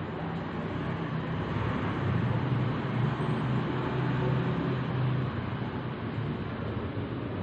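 Steady low rumbling background noise with a faint hum, swelling slightly in the middle; no voice is reciting.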